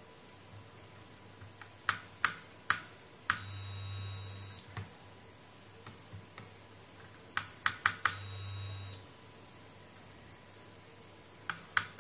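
Digital multimeter's continuity buzzer giving a steady high beep twice, each about a second long, as the test probes bridge a connected pair of points on the circuit board. A few sharp clicks come just before each beep.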